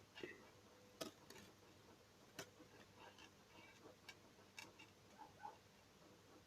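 A handful of faint, irregular small clicks and ticks of seed beads and stiff fishing line being handled during beadwork, with near silence between them.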